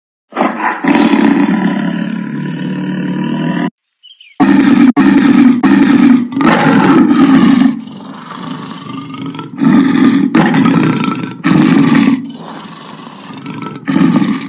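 Lion roaring in a run of loud, deep roars. The roars are chopped into segments that cut off abruptly, with a brief silence about four seconds in.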